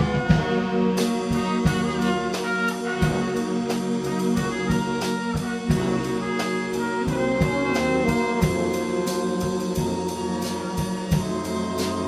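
Community concert band playing a medley of film themes: brass and saxophones hold chords over a steady beat of drum strikes, about three a second.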